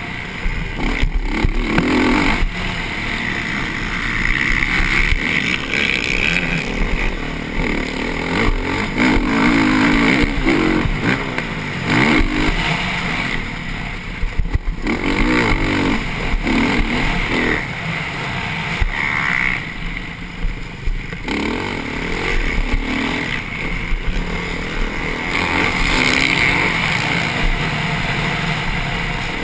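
TM Racing motocross bike's engine, heard onboard at race pace, revving up and dropping off over and over as the throttle is opened and shut through corners and over bumps, with wind rushing over the microphone. The throttle shuts off briefly twice, about 14 and 20 seconds in.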